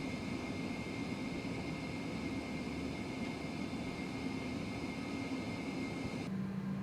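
Steady jet aircraft engine noise: a constant rush with a faint high whine and a low hum, changing abruptly to a lower, plainer hum near the end.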